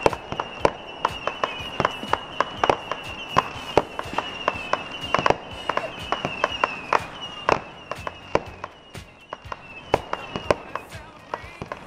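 Fireworks going off: an irregular string of sharp pops and crackles, several a second, thinning out for a moment about eight seconds in. A high, wavering tone runs under the pops for most of it.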